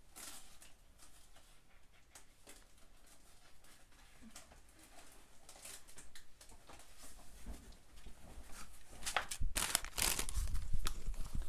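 Plastic-film-covered diamond painting canvas crinkling and rustling as it is handled: faint scattered crackles at first, then louder and denser rustling near the end as a second rolled canvas is spread out over the first.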